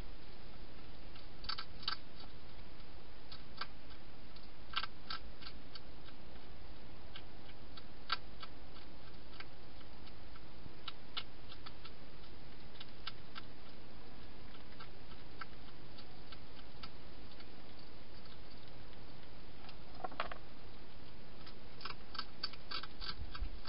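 Wild hedgehog chewing food inside a plastic feeding box, heard as scattered sharp clicks in small clusters over a steady hiss.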